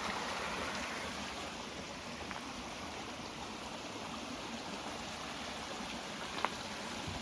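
A creek running steadily, an even rushing wash of water, with one faint tap about six and a half seconds in.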